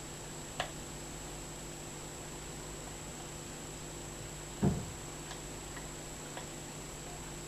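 Faint clicks from a thin hook pick and tension wrench working the pins of a small Corbin padlock, over a steady electrical hum. One sharper click comes near the start, and a dull knock from handling the lock comes a little past halfway.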